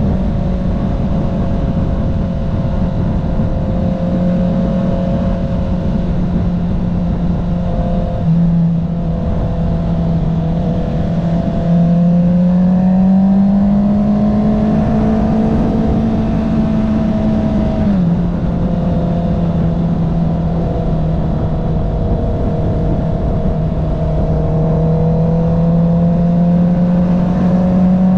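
2021 Honda CB650R's inline-four engine through an Akrapovic full-system titanium racing exhaust with the dB killer removed, running at a steady drone under wind rush. The pitch climbs about twelve seconds in, then drops sharply at about eighteen seconds as the bike shifts up, and rises slowly again near the end.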